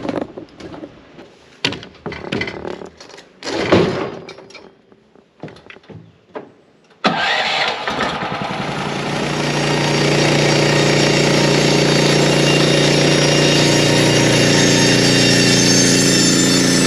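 Knocks and scrapes of a log being levered and set on a sawmill bed. About seven seconds in, the portable band sawmill's engine starts and runs. Around ten seconds in it gets louder and holds steady as the band blade cuts through the spruce log.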